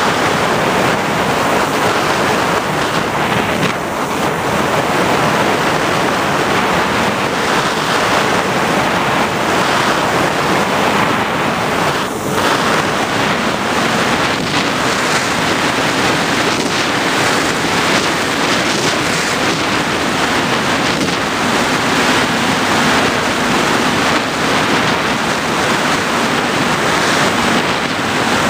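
Steady rush of wind over the onboard camera's microphone of an FPV model aircraft in flight, a loud, even roar with no clear motor tone standing out.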